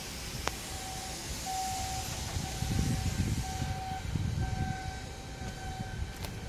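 Forklift engine running, with its warning beeper sounding a steady series of beeps; the engine rumble swells for a couple of seconds in the middle.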